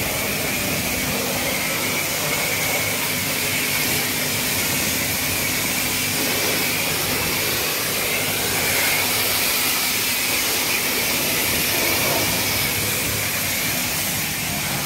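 Car-wash pressure wand spraying a steady hissing jet of water onto a mud-caked vehicle's bodywork and tyre.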